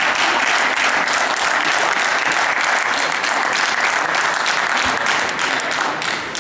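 Crowd applauding, dense and steady, tailing off near the end.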